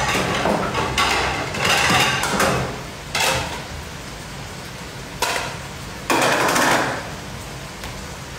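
Kitchen clatter: knocks and rattles of items being moved around in a lower kitchen cupboard, in a handful of separate bursts.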